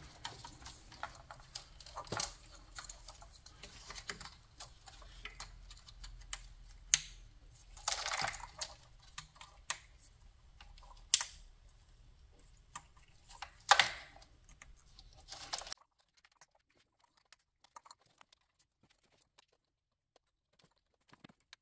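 Plastic wiring-harness connectors being pushed onto port fuel injectors by gloved hands, with the harness being handled: scattered small clicks and rustles, the sharpest about eleven seconds in. Near silence for the last six seconds or so.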